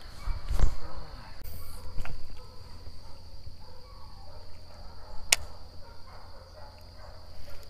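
A steady, high-pitched insect chorus over a low hum, with one sharp click about five seconds in.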